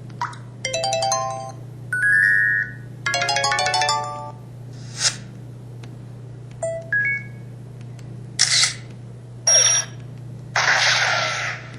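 MS250 mobile phone playing a series of its built-in sound effects: short melodic chimes and jingles, brief beeps, and several hiss-like bursts, the longest about a second long near the end. A low steady hum runs underneath.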